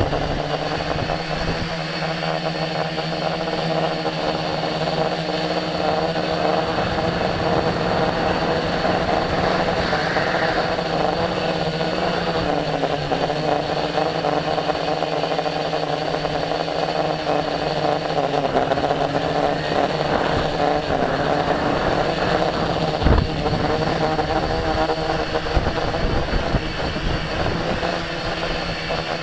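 Tricopter's three electric motors and propellers running steadily in flight, a buzzing drone with several held tones that shift slightly in pitch, over rough wind rumble on the onboard microphone. A sharp thump about two-thirds of the way through.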